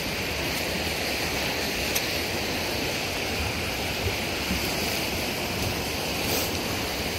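Steady wash of lake waves on the shore, mixed with wind buffeting the microphone.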